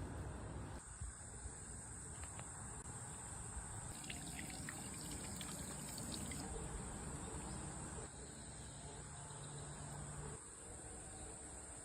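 Faint outdoor ambience with a steady, high-pitched insect chorus of crickets or similar insects, over a low background hum. There are a few light ticks near the middle.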